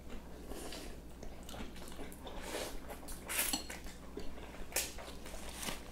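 Cutlery clinking and scraping against plates and dishes during a meal, in light, scattered clicks, a few louder ones past the middle.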